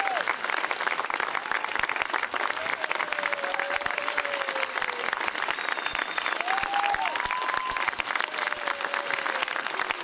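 Crowd applauding steadily, with a few drawn-out cheers rising and falling above the clapping.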